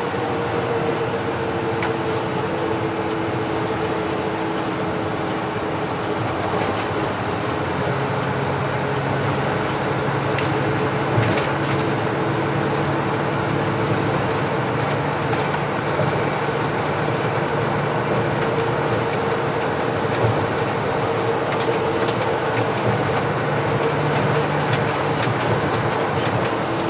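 Mack CH600 truck cruising on a freeway, heard inside the cab: a steady engine drone and road noise, with a few sharp clicks.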